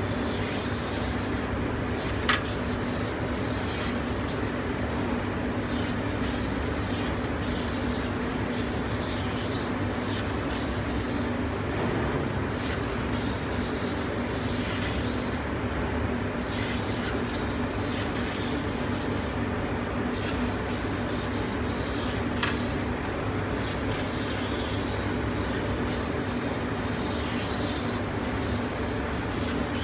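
Fabric laser cutting machine running while its gantry head cuts around printed shapes: a steady machine hum and hiss. Two brief sharp clicks stand out, one a couple of seconds in and one about three-quarters of the way through.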